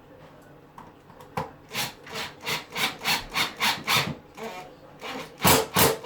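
A hand tool working in repeated rasping strokes, about three a second, followed by two louder strokes near the end.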